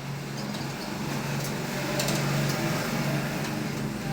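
A steady low hum, with a few light clicks.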